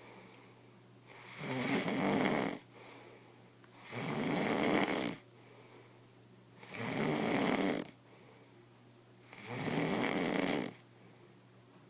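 A person snoring: four long snores about two and a half seconds apart, each lasting about a second.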